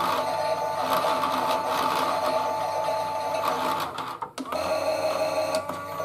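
Toy washing machine's small electric motor whining steadily as it turns the drum through the wash. About four seconds in it cuts out for a moment, then starts again at a slightly different pitch.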